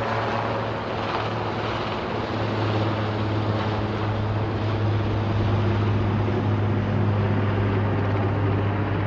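Helicopter flying over a wildfire, a steady engine-and-rotor drone that gets a little louder about two seconds in.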